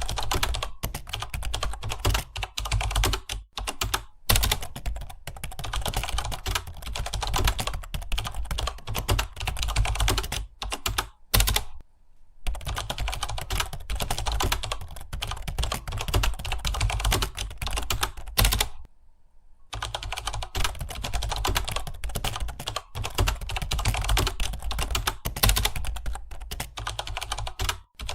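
Fast typing on a computer keyboard: a dense, steady stream of key clicks that stops twice for about a second.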